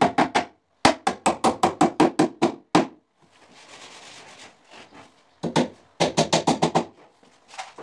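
Hammer driving nails into a plywood chimney hood: quick runs of sharp knocks, about five blows a second, in three bursts with a pause in the middle.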